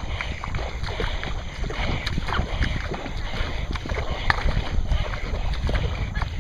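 Water rushing and splashing along a kayak's hull and deck as it is paddled fast, with many irregular small splashes and a steady low wind rumble on the microphone.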